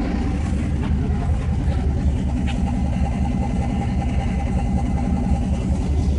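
Twin-turbo 6.0 L LQ4 V8 idling steadily at about 600 rpm. The freshly rebuilt engine is on one of its first runs, still untuned but a bit more civilized now that the computer has a fuel table to read instead of a fixed, ridiculously high fuel quantity.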